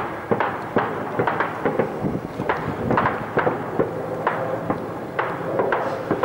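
Gunfire: irregular single shots, about two a second, over continuous background noise.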